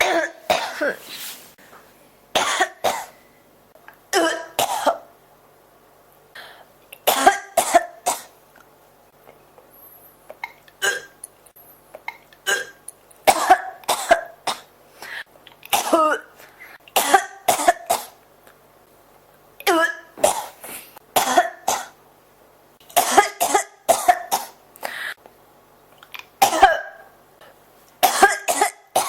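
A person in a coughing fit, coughing in short clusters of several coughs every two to three seconds, with quiet breaths between.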